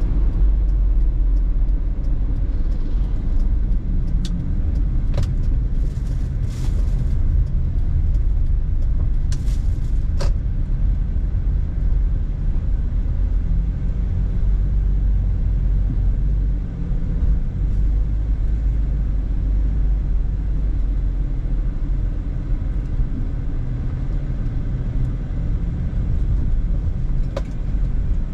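Car driving, heard from inside the cabin: a steady low rumble of road and engine noise, with a few light clicks in the first ten seconds and one more near the end.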